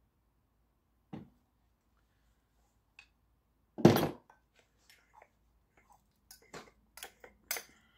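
Metal parts of an electric motor being handled during dismantling: a soft knock about a second in, a loud clunk about four seconds in, then a run of small metallic clinks and taps.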